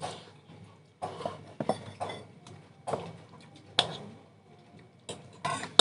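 Noodles being slurped and eaten, with metal forks scraping and clinking against the bowls in short bursts. One sharp clink about four seconds in.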